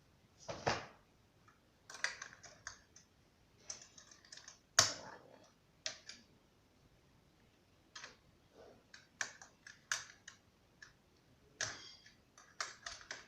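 Plastic parts of a Znatok electronic construction kit being handled and snapped onto the kit's board: a dozen or so irregular clicks and clacks with short pauses between, the loudest about five seconds in.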